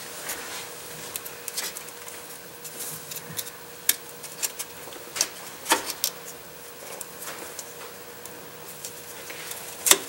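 Light clicks, knocks and rubbing of hands handling the transmission wiring harness connector: cleaning the socket and fitting the plastic connector into the transmission case. A faint steady hum runs underneath.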